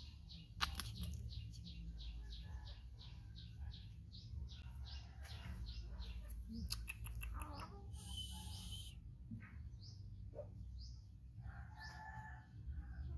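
Birds chirping, a quick repeated run of short, high, falling chirps that thins out after about seven seconds, over a steady low rumble. A short hiss comes about eight seconds in and a short lower-pitched call near the end.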